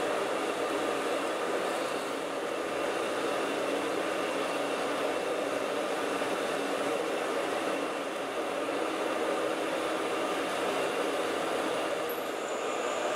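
Metal lathe running while a 16 mm twist drill in the tailstock cuts into the spinning bar stock, a steady machining drone with cutting noise. A faint high whine comes in near the end.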